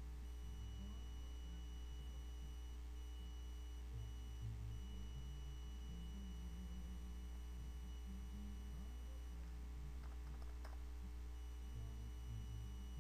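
Steady low electrical hum with several thin steady high tones over it, and a few faint short clicks a little after ten seconds in.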